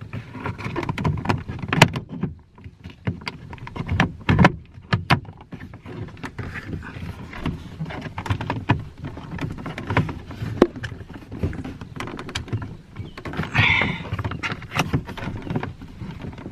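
Irregular clicks, knocks and light rattles of plastic car door trim and the power window switch panel being handled and pressed back into place.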